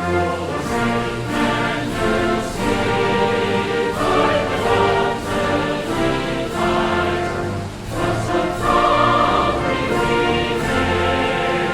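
Orchestral music with a choir singing, starting abruptly and continuing at a steady level.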